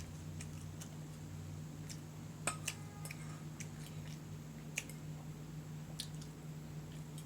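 Eating sounds: chewing with scattered short clicks and light taps, the sharpest about two and a half seconds in, over a steady low hum.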